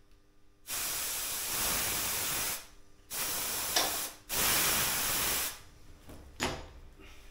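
Compressed air from a workshop compressor's air chuck hissing in three bursts, the middle one short, as the bicycle's new inner tube is inflated. A sharp click comes in the middle burst.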